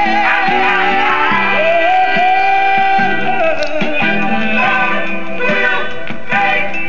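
Soul record playing from a 7-inch 45 rpm vinyl single: the full band with long, wavering held vocal notes and no clear sung words.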